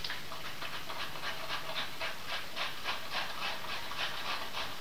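Cabbage being shredded on a handheld grater, a steady run of rasping strokes at about four or five a second.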